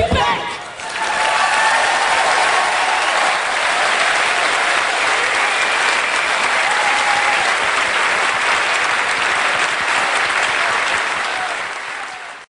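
A sung final note ends and a theatre audience breaks into applause, which holds steady and then fades out near the end.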